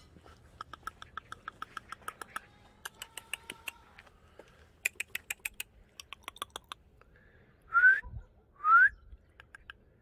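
A person calling a dog, first with quick runs of mouth clicks, about six a second, in several bursts, then with two short rising whistles about a second apart near the end, the loudest sounds.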